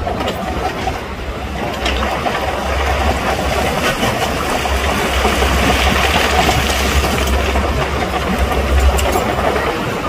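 Heavy diesel engine of earthmoving machinery running steadily under a deep rumble, with a broader rise in engine noise around the middle.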